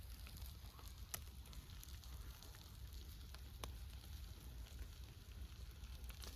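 Campfire crackling faintly, with scattered sharp pops over a low steady rumble.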